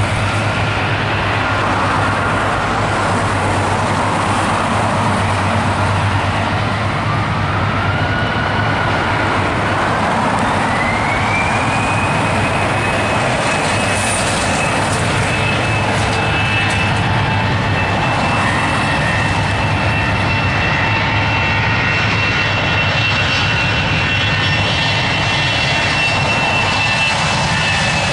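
Airbus A320-214's CFM56 jet engines spooling up for take-off: a whine rises in pitch from about seven to twelve seconds in, then holds high and steady as the aircraft accelerates down the runway, over a constant loud rush of noise.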